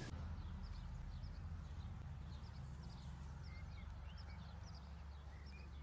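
Faint outdoor ambience: small birds chirping in short high notes, many times, over a low steady rumble.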